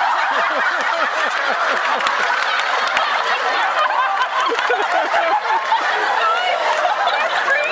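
Large audience laughing loudly, many voices at once.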